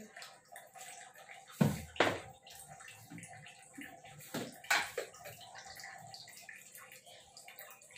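A few sharp knocks and clicks as a steel spoon taps the cooking pot and plastic spice containers are handled, the loudest pair about two seconds in and another cluster past the halfway point. Under them, a steady noise from the gas burner and the pot of water heating on it.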